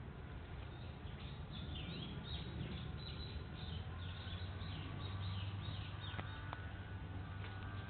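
A bird calling a quick series of swooping high notes for a few seconds, over a steady low rumble, with a few sharp clicks near the end.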